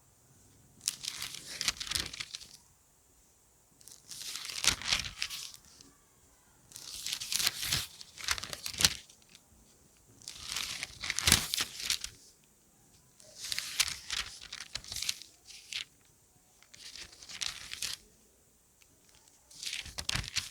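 Pages of a book being turned one after another: about seven rustling page turns, one every three seconds or so, each a second or two of paper swishing and crackling.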